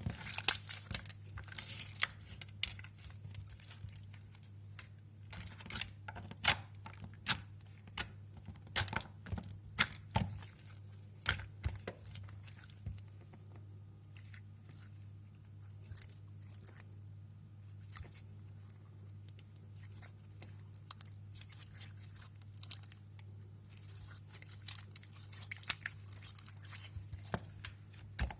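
Slime being squeezed and stretched by hand, giving irregular sharp pops and clicks, thick for the first dozen seconds, sparse for a while, then picking up again near the end. A steady low hum runs underneath.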